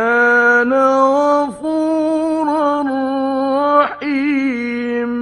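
Male Qur'an reciter chanting in the melodic mujawwad style, drawing out long held notes with wavering ornamented turns and breaking off briefly twice. A faint steady hum lies underneath.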